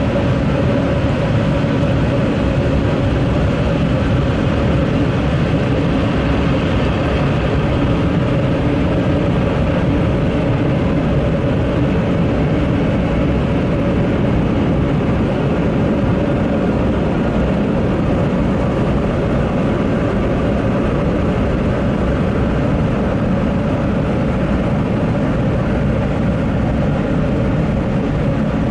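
Automatic car wash machine running, heard from inside the car: a steady, loud rush of noise with a constant hum.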